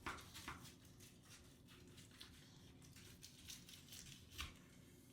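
Faint kitchen handling sounds as smoked meat is readied for cubing: scattered light rustles and clicks, with one louder knock about four seconds in.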